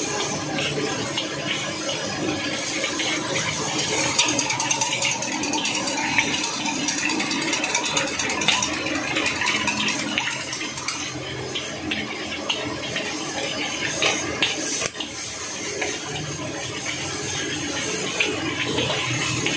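Fried rice sizzling in a hot steel wok while a metal spatula scrapes and clinks against the pan in quick, irregular strokes.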